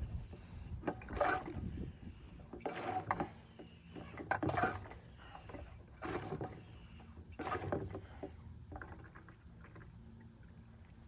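Diesel being drawn by hand into a container with a hand fuel pump: five slow, even pumping strokes about a second and a half apart, each with a rush of liquid, stopping about two-thirds of the way in.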